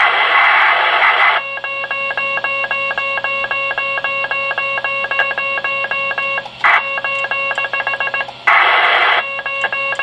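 Receiver audio from a 10 GHz microwave amateur radio station. First comes the rough, broad hiss of a rain-scatter signal, then a clean, strong tone keyed on and off in rapid dots, about eight a second. The scatter hiss breaks in briefly twice.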